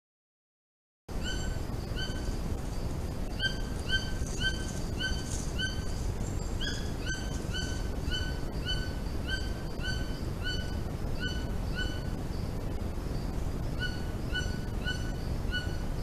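White-throated toucan singing: a long series of short, slightly upturned notes, about two a second, with a short pause near the end. It starts about a second in, over a steady low background hiss.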